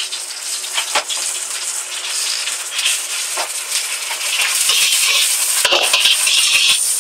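Noodles sizzling in a hot wok as they are stir-fried, with a metal spatula scraping and knocking against the wok, the knocks coming thicker near the end.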